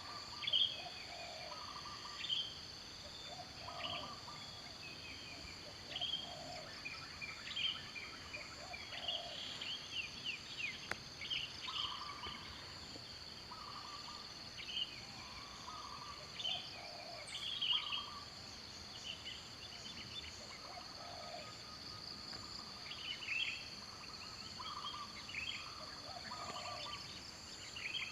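Birds calling outdoors: short low notes repeating every two seconds or so, with scattered higher chirps, over a steady high-pitched insect drone.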